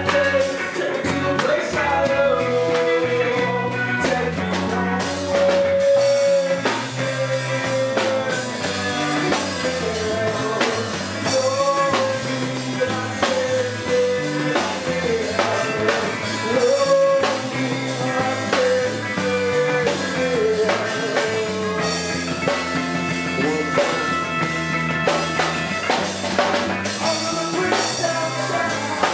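A band playing a rock song live: a singer holding long notes over a drum kit and other instruments.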